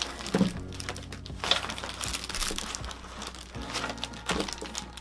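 Crinkling and rustling of plastic packaging and a cloth travel pouch as a bundle of rubber resistance bands is pulled out and handled, in irregular bursts.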